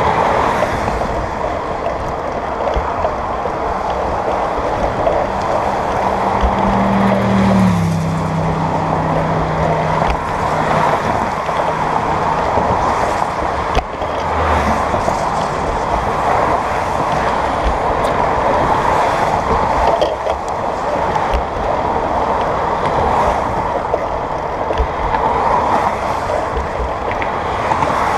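Steady wind noise on the microphone of a bicycle-mounted camera, mixed with road traffic passing close by. Around seven to eight seconds in, a passing vehicle's low hum drops in pitch as it goes by.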